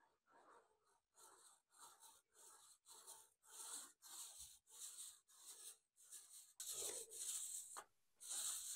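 Small paint roller being rolled up and down a wall, a faint sticky rasp on each stroke at about two strokes a second. The strokes grow longer and louder near the end.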